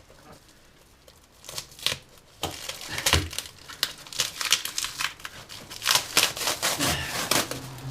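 Parcel packaging crinkling and tearing as it is handled, a rapid irregular run of crackles and rustles that starts about two and a half seconds in after a quieter opening with a few scattered clicks.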